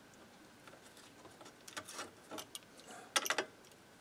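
Scattered light clicks and taps of a hand tool working at screws inside an old tube-type reel-to-reel recorder, with a quick cluster of sharper clicks a little after three seconds in.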